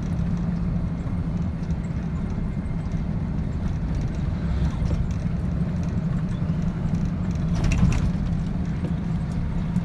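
Truck engine running steadily under way, a low even drone heard from inside the cab, with a brief knock about eight seconds in.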